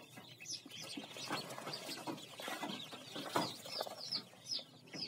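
A brooder crowd of ducklings peeping, many short high calls falling in pitch, overlapping without pause, with a few brief knocks among them.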